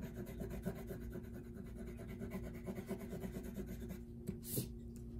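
Wax crayon colouring on paper: quick back-and-forth scratchy strokes, with one brief sharper scratch about four and a half seconds in.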